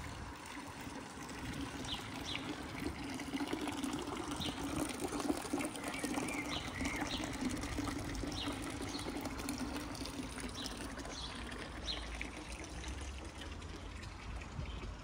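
Thin stream of water from a village fountain spout trickling and splashing into a stone trough, steady for most of the time and fading out near the end.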